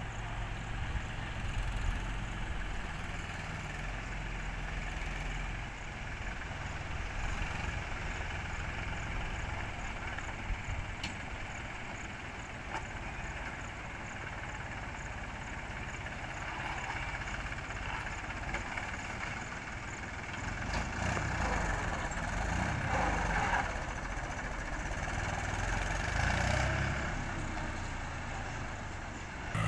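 Mahindra 275 DI tractor's three-cylinder diesel engine running steadily under load as it hauls a loaded sand trolley through a shallow river, getting somewhat louder in the second half.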